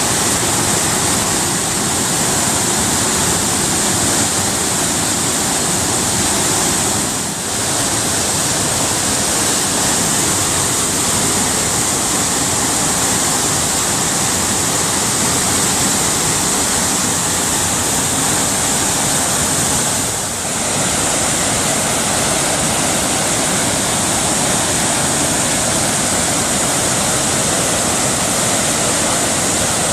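The River Clyde in spate after heavy rain: a loud, steady rush of fast white water that dips briefly twice, about 7 and 20 seconds in.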